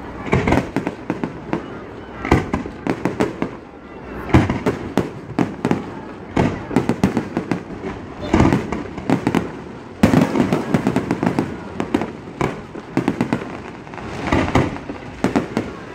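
Aerial fireworks going off in rapid volleys of sharp bangs and crackles, a new cluster about every two seconds.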